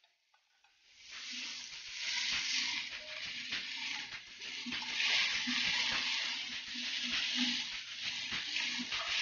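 Flaked fish, onions and tomatoes sizzling in hot oil in a nonstick wok, a fluctuating hiss that starts about a second in, with a spatula stirring the mixture near the end.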